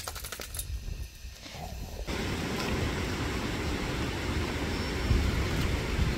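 Faint ticking spray from a lawn sprinkler. About two seconds in, it changes abruptly to a steady rushing noise of river water with a low rumble.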